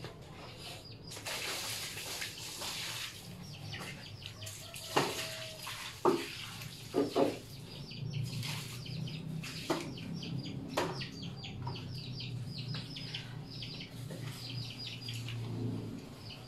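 Hand-washing clothes in plastic tubs: water splashing, several sharp knocks of the tubs and buckets, and water running steadily into a basin through the second half. Small birds chirp in quick runs throughout.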